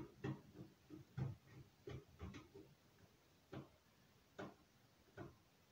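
Faint, irregular clicking as the last mounting screw of a PC power supply is turned into the metal case, tightening it down. About ten small clicks come close together at first, then a few spaced ones near the end.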